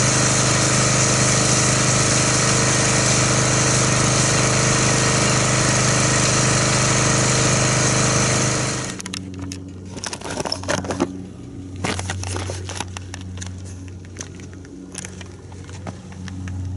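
Pressure washer running with an MTM foam cannon spraying foam: a steady hiss over the pump's hum. It stops abruptly about nine seconds in, leaving a faint low hum and scattered light clicks.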